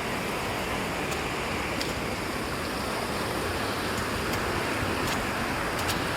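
Steady rushing of flowing water, as from a monsoon stream or small waterfall, even throughout, with a few faint light ticks on top.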